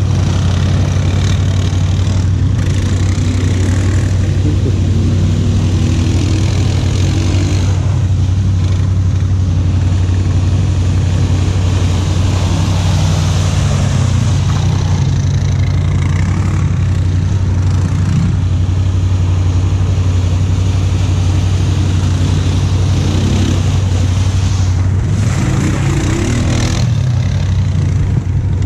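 ATV engines: one quad's engine running steadily at a low idle, with another ATV revving up and down several times as it churns through mud and water.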